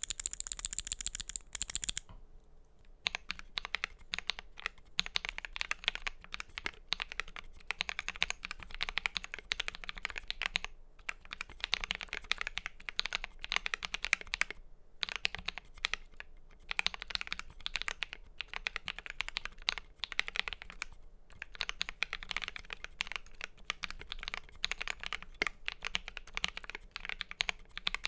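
Typing on an FL.eSports MK870 mechanical keyboard fitted with lubed Akko CS Blue switches and TaiHao PBT keycaps: a steady stream of keystroke clacks with short pauses. It opens with a louder two-second burst of very rapid, hissy clicking.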